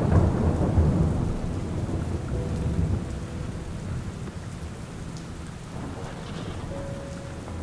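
Thunderstorm: a low rumble of thunder that fades over the first few seconds, over steady rain.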